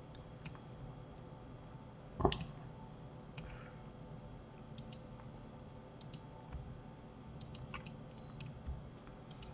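Faint, scattered clicks of a computer mouse and keyboard, one louder click about two seconds in, over a faint steady hum.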